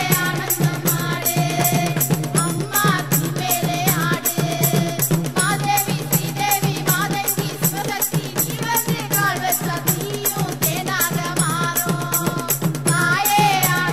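Tamil Amman devotional song: female voices singing a melody over fast, dense drumming from an urumi melam percussion ensemble.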